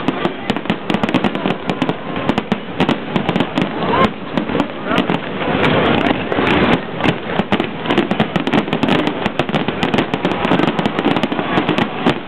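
Aerial fireworks display in a dense barrage: shells bursting one after another, several reports a second, over continuous crackling.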